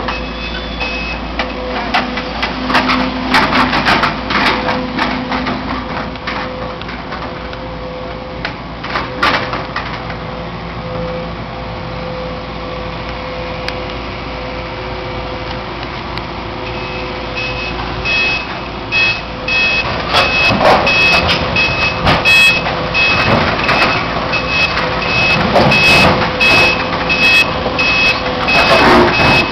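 Heavy machinery engine running, with knocks and clatter, and a reversing alarm beeping at a steady rhythm for the first second and again from a little past halfway on.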